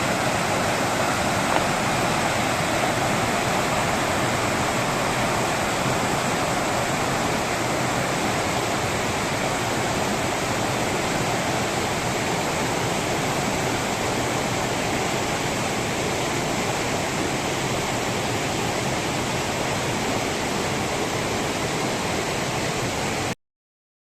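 Steady rush of fast-flowing water, a stream or falls running high after a typhoon. It cuts off abruptly near the end.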